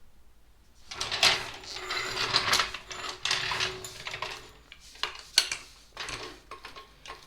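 A car jack being handled and set up under the vehicle: irregular metal clicks, clanks and scrapes.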